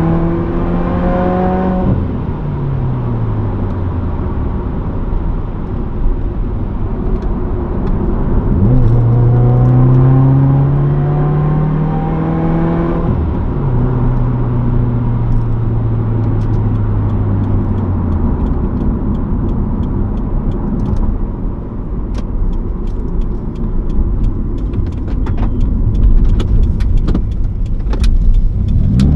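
2015 Subaru WRX's turbocharged 2.0-litre flat-four, breathing through a Nameless muffler delete, accelerating hard. The revs climb and drop away about two seconds in, then climb again from about nine seconds to about thirteen seconds. After that it drops to a lower, steady cruise.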